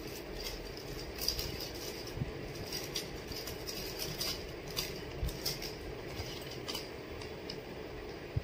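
Hands unwrapping a small packaged gift: scattered rustles and small clicks of plastic packaging being handled, over a steady background hum.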